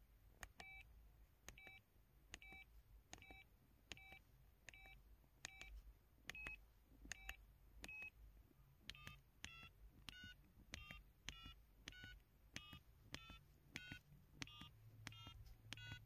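Samsung SPH-S3900 phone's 'Electronics' keypad sound: each key press gives a click and a short electronic beep, about two a second. The first dozen beeps keep one pitch; the later ones change pitch from key to key.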